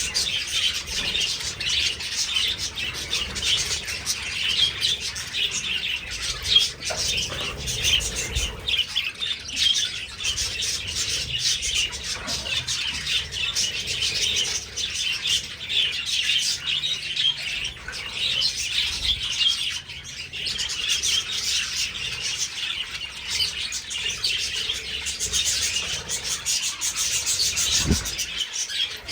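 A flock of budgerigars chirping and chattering continuously, many birds at once.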